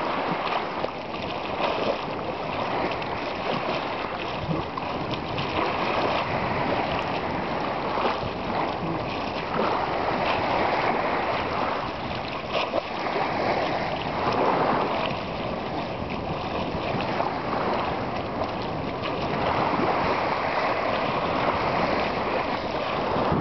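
Shallow seawater lapping and sloshing, a steady rushing noise that swells and eases every few seconds.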